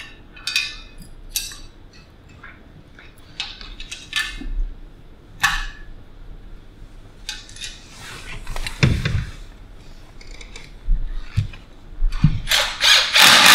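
Metal clinking and clanking as the steel blades, bolts and washers of a rotary mower's blade disc are handled and fitted. Near the end a hand-held power driver starts up in short loud bursts against the disc.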